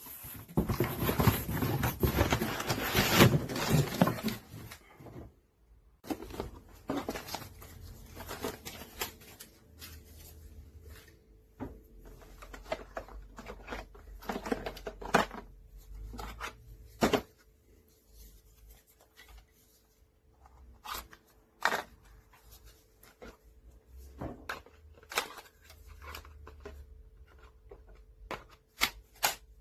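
Handling noises: about four seconds of loud rustling at the start, then scattered clicks and knocks, over a faint steady hum.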